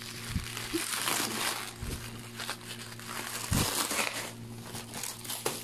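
Clear plastic wrap being pulled and bunched up off a large cardboard box, crinkling and crackling irregularly.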